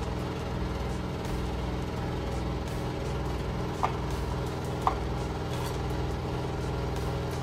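A steady low hum from a kitchen appliance, with a metal spoon clinking twice against a ceramic bowl about four and five seconds in as cream-cheese filling is scooped out.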